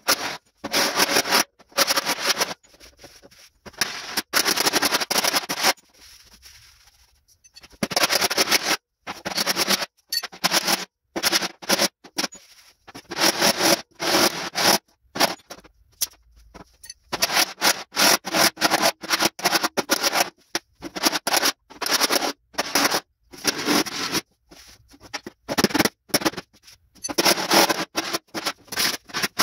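Steel body hammer striking a dented classic car fender against a dolly, in quick runs of sharp metallic blows with short pauses between runs, as the dent is roughed out.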